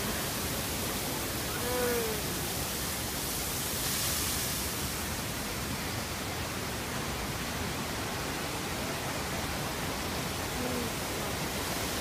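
Steady rushing noise of a large waterfall, with a few faint snatches of voices about two seconds in and again near the end.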